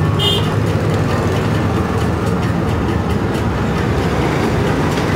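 Steady low engine rumble of street traffic, with a short high chirp at the start and a few faint light clicks.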